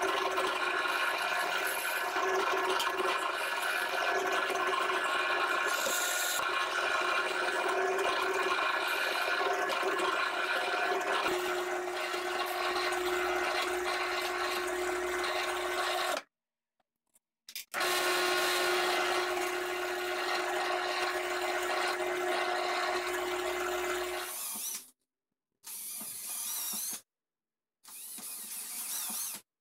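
Benchtop drill press running steadily with a constant hum while drilling and countersinking holes in a clear polycarbonate sheet, broken once by an abrupt cut to silence about halfway through. Near the end come two short runs of an 18-volt Makita cordless drill drilling into the sheet.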